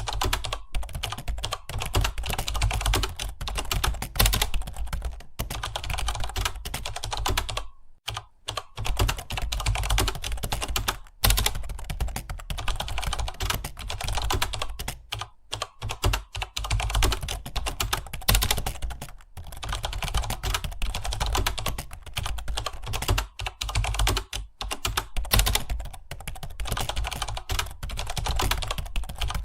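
Fast, continuous typing on a computer keyboard, with brief pauses about eight, eleven and fifteen seconds in.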